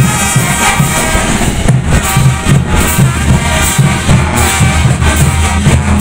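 Bolivian brass band playing loudly: brass and sousaphones over a steady beat of bass drums and crash cymbals.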